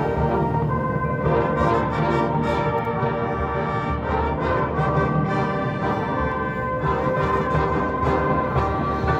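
Marching band playing: the brass section holding chords over the front ensemble's percussion, including timpani.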